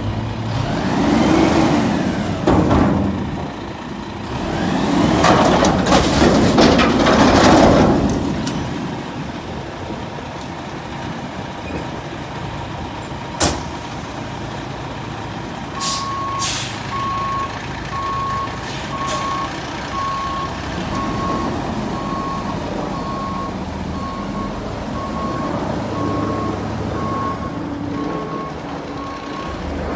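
Front-loader garbage truck's diesel engine revving loudly, rising and falling, for the first eight seconds, then a sharp release of air from the brakes. From about halfway its reverse alarm beeps about once a second over the running engine.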